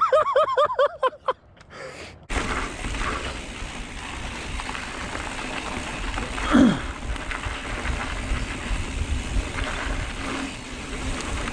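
Steady wind buffeting and tyre rumble on a helmet or chest camera as a mountain bike rolls down a trail, with a brief falling sweep in the middle. A few spoken words come before an abrupt cut to the riding noise about two seconds in.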